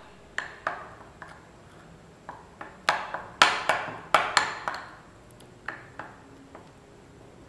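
A spoon clinking and scraping against a small glass bowl as thick paste is stirred: irregular sharp clinks with a short ring, a few at a time with pauses, busiest a few seconds in.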